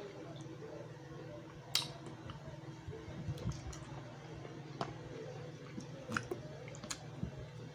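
Eating crab: soft chewing and mouth sounds, with a few sharp cracks and clicks of crab shell being broken, over a steady low hum.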